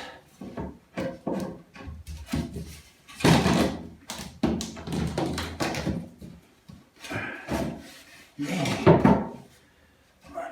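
Wooden skirting board being offered up to a wall and pushed into place: a run of irregular knocks and thumps with short scrapes, the loudest about three seconds and nine seconds in.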